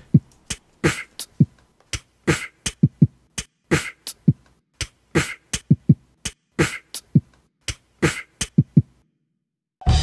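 Beatboxing: a mouth-made beat of low kick thumps, snare-like hits and hissy hi-hat sounds in a quick steady rhythm, left alone after the rap verse. It stops about nine seconds in.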